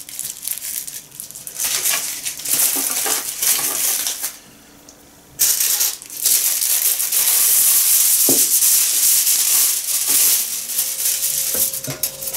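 Aluminium foil crinkling and rustling as it is handled and wrapped around chicken drumsticks, with a short pause about a third of the way in.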